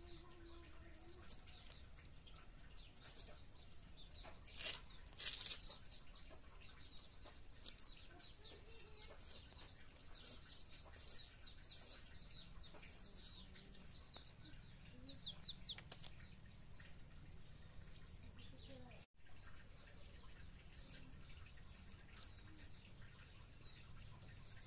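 Poultry chicks peeping in quick, short falling peeps, faint and scattered, with two brief louder crisp sounds about five seconds in as a knife cuts raw radish.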